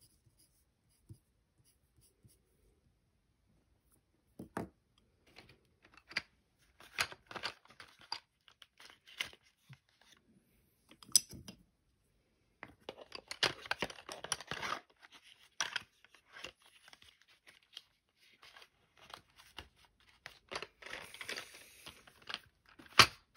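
A cardboard crayon box being handled: irregular rustling, scraping and sharp clicks, starting a few seconds in, with the loudest click near the end.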